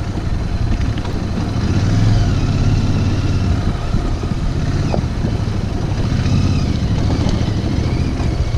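Motorcycle engine running, with steady low noise throughout.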